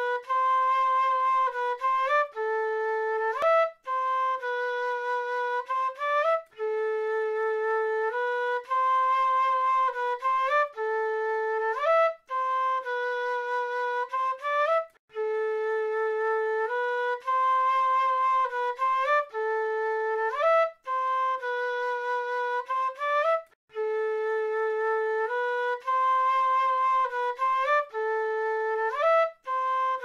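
A wind instrument, billed as a South American flute, plays a simple melody of held notes. Each phrase ends in a quick upward slide, and the phrases are separated by brief breaks.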